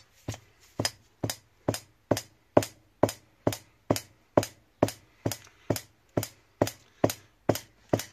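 Honda CD175 front fork being slide-hammered: the chromed inner tube is bounced up and down inside the alloy lower leg, knocking metal on metal in a steady rhythm of a little over two knocks a second. With the damper bolt out, the repeated knocks work the tube free of the lower leg.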